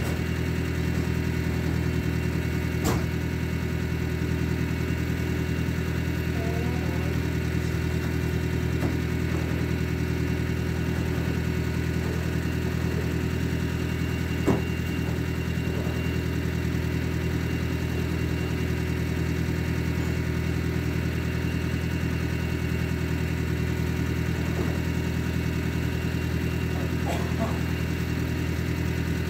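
A skid steer's engine idling steadily, with a few sharp knocks of things being handled, the loudest about halfway through.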